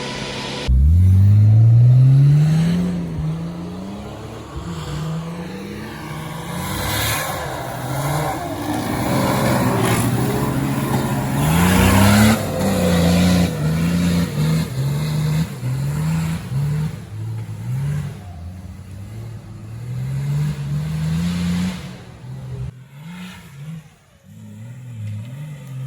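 Off-road 4x4's engine revving hard, starting abruptly about a second in, then its pitch repeatedly climbing and dropping as the throttle is worked on and off. It quietens briefly near the end before picking up again.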